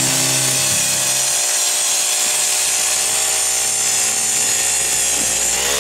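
Eskimo HC40 propane ice auger's four-stroke engine running under load as the bit cuts through lake ice. The engine holds a steady speed, then near the end dips slightly and revs back up.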